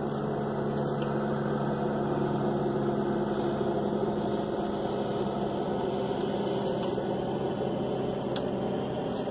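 Steady low mechanical hum from a running motor, holding a few fixed low tones without change.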